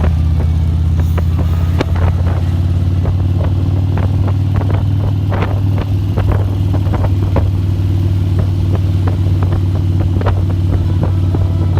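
A motor engine runs steadily with a deep, loud drone, and many irregular sharp cracks and clicks sound over it.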